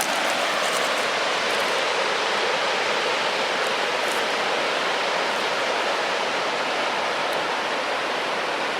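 Steady rushing of flowing water from a creek, an even hiss that holds at the same level throughout.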